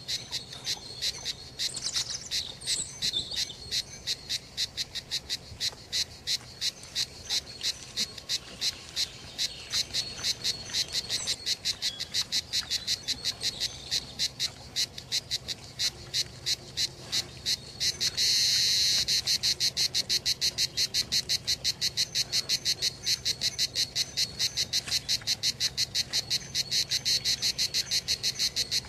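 Cicadas singing: a high, rhythmic chirping that pulses about three times a second. About two-thirds of the way in, a continuous high buzz joins it and becomes louder than the pulses.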